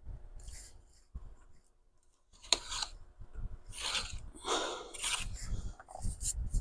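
A blade trimming the cut edge of an old ring-binder cover to straighten it. The first two and a half seconds are fairly quiet; then comes a run of scraping cutting strokes.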